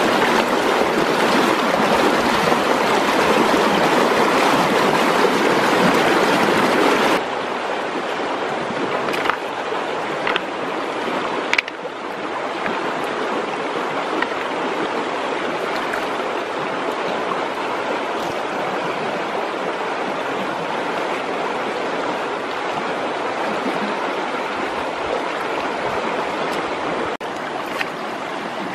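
Loud, steady rush of river water over rapids. About seven seconds in it cuts to the quieter, steady flow of a shallow stream running over stones, with a few short knocks and splashes from hands and a clay pot working in the water.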